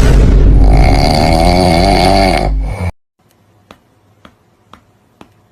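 Loud snoring with a wavering pitch that cuts off suddenly about three seconds in. Faint ticking follows, about two ticks a second.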